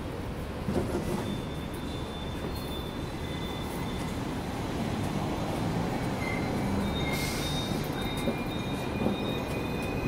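Hong Kong double-decker electric trams running on street rails: a steady low rumble, with a thin high wheel squeal that comes in about a second in and again from about six seconds on.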